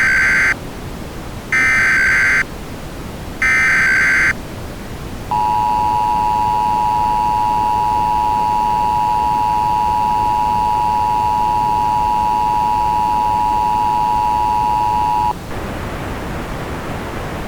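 Emergency Alert System tones: three one-second squawks of the SAME digital header data, about two seconds apart, then the EAS two-tone attention signal (853 and 960 Hz sounded together) held steadily for about ten seconds. The tone cuts off suddenly to a steady hiss near the end.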